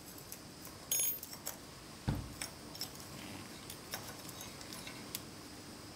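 Faint metallic clicks and clinks of a snap ring being worked by hand onto the driver of a Shimano Nexus 8-speed hub to hold the sprocket in place. One ringing clink comes about a second in, a soft knock about two seconds in, then scattered small ticks.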